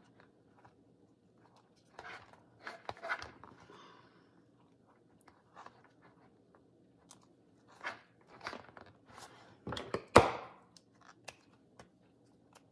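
Handling sounds of binding thread being pulled tight and knotted through a paper and card journal cover: short, irregular rustles and scrapes, with a louder scrape about ten seconds in.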